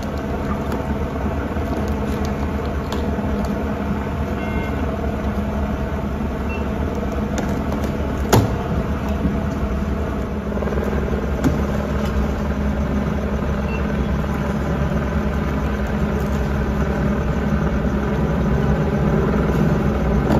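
An engine running steadily at idle, a low droning rumble, with two sharp pops about eight and eleven seconds in.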